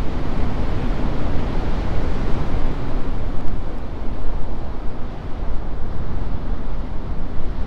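Heavy Pacific surf breaking on a rocky shore: a loud, unbroken wash of breaking and churning water, with wind on the microphone.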